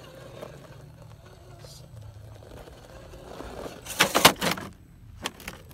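Scale RC rock crawler rolling over and tumbling down a rock face: a quick burst of clattering impacts of its body and wheels on the rock about four seconds in, then a single knock a second later.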